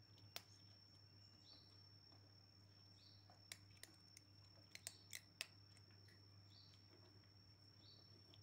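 Near silence with a kitten faintly crunching dry food: a crisp crunch about half a second in and a cluster of crunches in the middle. Under it, a faint steady high whine and a short high chirp repeating every second or so.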